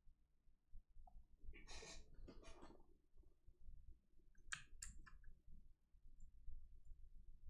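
Near silence with a few faint computer mouse clicks, in two small groups: one about two seconds in and one near the middle.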